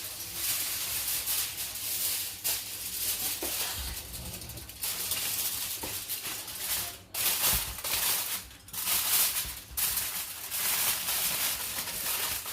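Continuous crinkly rustling, broken by a few short pauses, as the tray of chicken is covered with a sheet of wrap.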